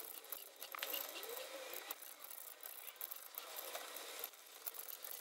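Faint scattered metal clicks and light taps of a hand socket wrench working the clutch spring bolts on a motorcycle clutch pressure plate.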